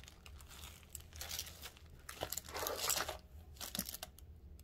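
Hands rummaging through a box of costume jewelry: irregular crinkling and rustling with a few light clicks, loudest about three seconds in.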